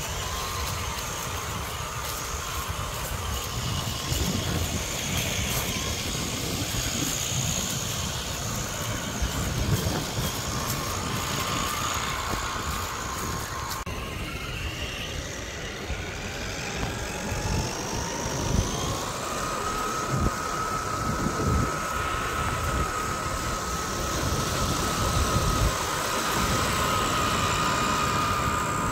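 Radio-controlled cars driving over rough ground: a motor whine that rises in pitch about two-thirds of the way through and then holds steady, over a rough low rumble with scattered knocks.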